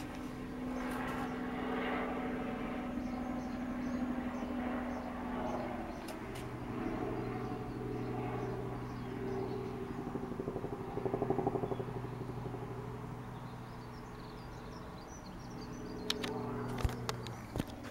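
Helicopter flying low overhead: a steady engine and rotor drone that shifts in pitch partway through. A few sharp clicks near the end.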